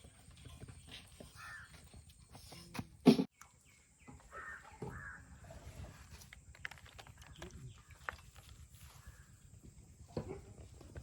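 Crows cawing in short, separate calls, with a single sharp knock about three seconds in, the loudest sound.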